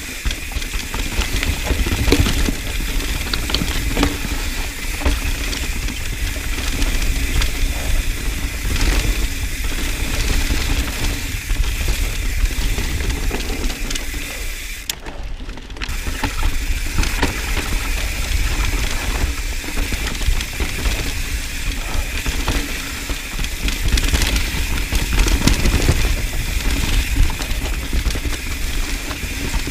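Mountain bike riding fast down dirt singletrack, heard from a camera mounted on the rider: wind rumbling on the microphone over tyre noise on dirt and roots. Frequent knocks and rattles come from the bike over bumps.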